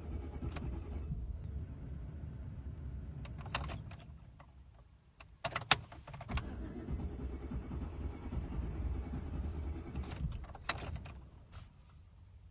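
An engine cranking over on its electric starter without catching, in two spells, with sharp clicks between them and after the second: a no-start.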